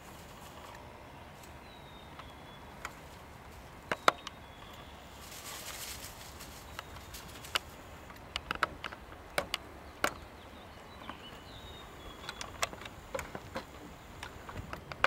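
Outdoor ambience: a low steady rumble with scattered sharp clicks and crackles, a few faint short high chirps, and a brief hiss about five seconds in.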